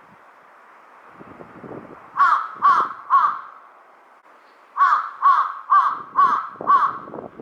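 Large-billed crow cawing: three loud harsh caws in quick succession, then after a short pause a run of five more.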